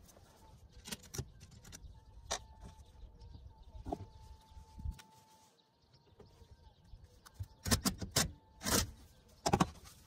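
Tools and metal parts of a rooftop RV air conditioner being handled: scattered clicks and knocks, a short steady tone about four seconds in, and a cluster of louder clattering knocks near the end.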